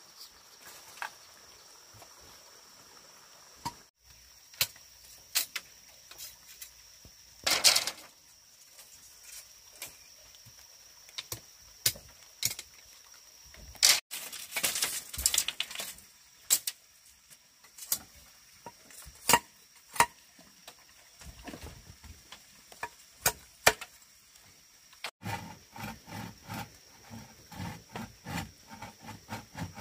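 Scattered knocks and clatters of handwork with stones and bamboo. About 25 seconds in, a run of quick, evenly spaced strokes begins, about three a second: a machete chopping bamboo.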